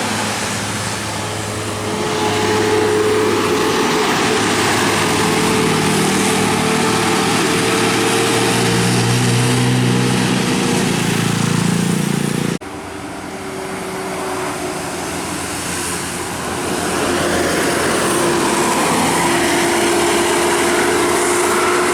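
Tour bus engine running and moving along the road, with road noise and a steady whine. The sound cuts off abruptly about twelve seconds in and starts again, building back up.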